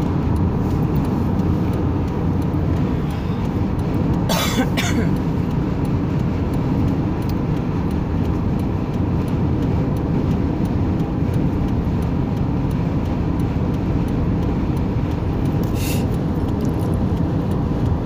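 Steady road and engine noise heard inside a car driving at highway speed, a low rumble that does not change. Two brief sharp noises come about four seconds in, and one more near the end.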